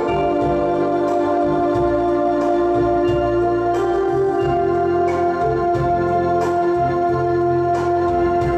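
Electronic keyboard played: long held chords over a changing bass line, with new notes struck every half second to a second.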